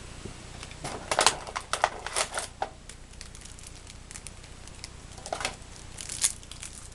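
Crinkling and crackling of a foil trading-card booster pack wrapper being handled, in two short spells.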